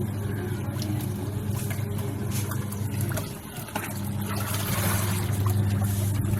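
Haier top-loading washing machine's wash motor running a wash cycle on a mechanical wash timer, a steady hum with water and clothes churning in the tub. The motor drops out briefly about halfway through, then runs again.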